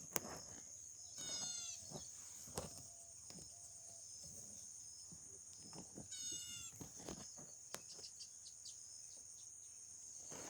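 Two short, high bird calls, about a second in and again about six seconds in, over a steady high insect buzz, with a few faint clicks.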